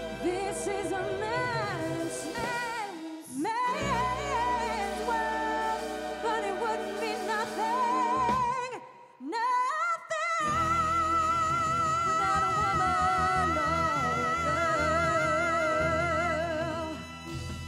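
Live band music with wordless singing: held notes with a wide vibrato over the band. The music drops out briefly about nine seconds in, then a single long vibrato note is held for about seven seconds and fades near the end.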